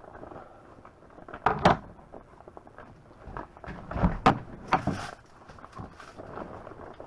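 A few sharp knocks and clunks of objects being handled, the loudest a double knock about one and a half seconds in, then another cluster of knocks around four to five seconds in.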